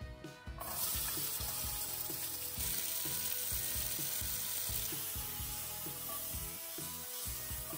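Red and yellow bell pepper strips sizzling steadily in hot oil in a frying pan. The sizzle starts about half a second in, as the peppers go into the pan.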